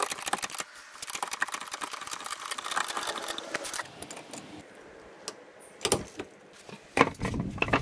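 Rapid metallic clicking and rattling from a hydraulic trolley jack and steel jack stand being worked under a raised car, then a few separate sharp metal knocks near the end.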